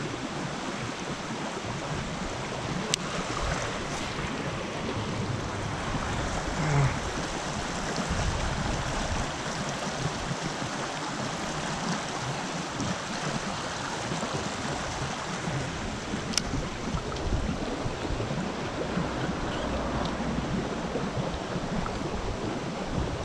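Creek water flowing steadily, with wind on the microphone. A few faint, sharp clicks stand out, about three and four seconds in and again past the middle.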